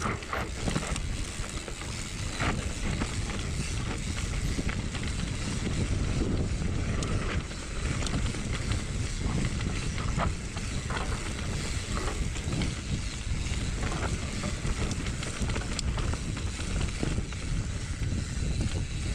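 Wind buffeting the microphone and a bicycle rattling on a fast descent over rough ground, with scattered clicks and knocks.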